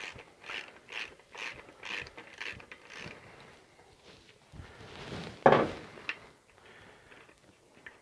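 Ratchet and 13 mm socket clicking, about two clicks a second, as the axle nut on a mono-blade front hub is undone. The clicking dies away after about three seconds, and a single louder knock comes about five and a half seconds in.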